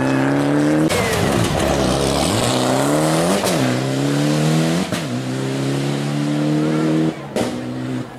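Rally car engine revving hard, its pitch repeatedly climbing and dropping as the driver works the throttle and gears. It cuts off abruptly about seven seconds in.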